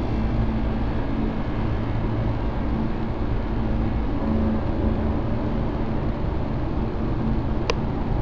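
Dark ambient background music: a steady, low drone with a few faint held tones underneath.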